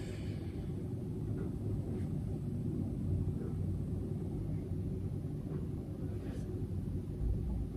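Steady low rumble with no speech, its energy deep in the bass.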